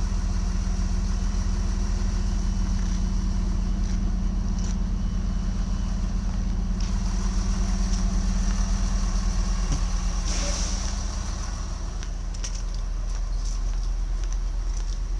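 Arriva GTW railcar standing at the platform with its engine idling, a steady low hum. A brief hiss sounds about ten seconds in.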